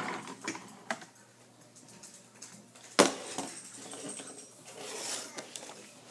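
Light clicks and knocks of plastic toys being handled and set down, with one sharp knock about three seconds in.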